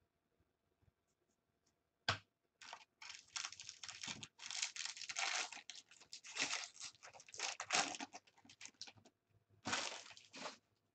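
A foil trading-card pack wrapper being torn open and crinkled by hand, in a run of rustling bursts. A single sharp click comes about two seconds in.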